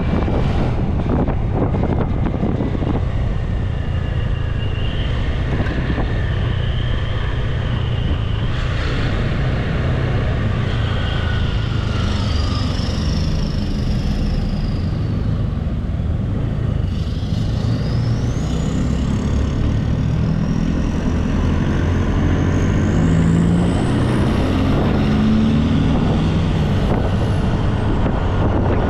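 Motorbike riding, heard from the rider's seat: a small engine running under a steady rush of wind and road noise, its note climbing as it speeds up in the second half. Thin, high sliding whistles come and go above it.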